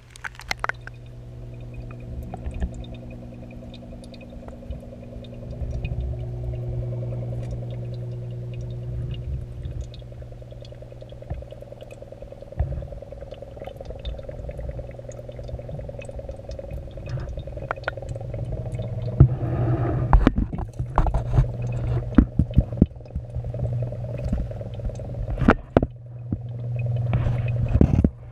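Aquarium sound heard underwater: a steady low hum with some bubbling. From about two-thirds of the way in come repeated knocks and scrapes, the camera housing bumping against the tank decorations.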